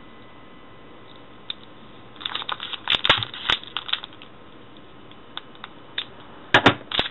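Plastic packaging being handled and cut open with a knife: a run of sharp clicks and scratchy crackles about two seconds in, a few lone clicks, then a louder burst of clicks near the end.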